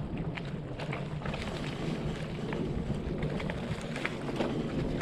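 Bicycle riding fast down a rough, leaf-covered dirt track: tyres rumbling steadily over the ground, with many sharp rattles and clicks from the bike jolting over bumps, and wind buffeting the microphone.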